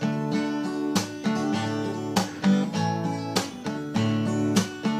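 Acoustic guitar strummed in a slow, steady rhythm, a strum about every second or so, between sung lines of a song.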